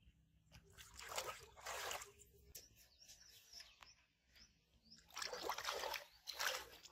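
Shallow pond water sloshing and splashing around a person's legs as he wades, in two spells about four seconds apart.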